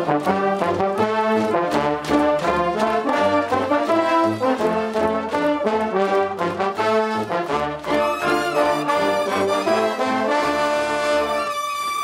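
Brass cheering band of trumpets and trombones playing a fast, rhythmic tune, ending on a long held chord that cuts off shortly before the end.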